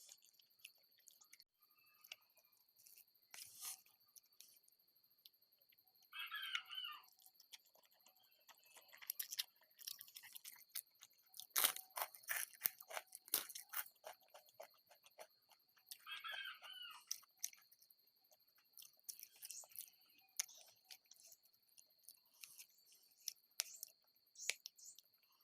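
Scattered clicks, crackles and rustles of food being handled and prepared by hand, busiest in the middle. A short pitched call sounds twice, about six seconds in and again about ten seconds later, over a faint steady high whine.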